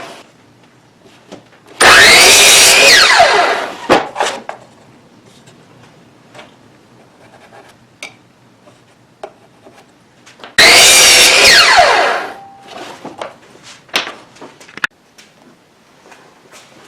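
Power saw cutting wood twice, each cut a short burst of a second and a half or so, the blade then winding down with a falling whine after the trigger is let go. Light knocks of wood being handled between and after the cuts.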